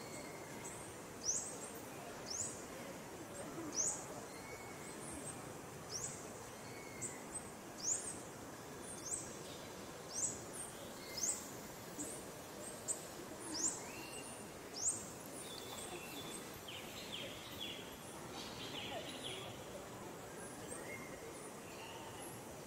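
A bird calling, a short, sharp, high-pitched note repeated about once a second, over a steady outdoor hiss; the calls stop about fifteen seconds in.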